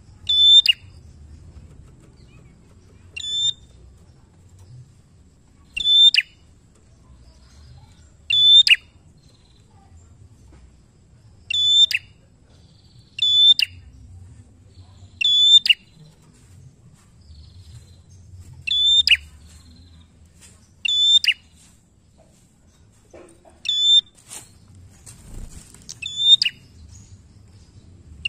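Caged red-headed prenjak, a small grey warbler with a rufous head, giving short, sharp, high-pitched calls about every two to three seconds, around eleven times in all.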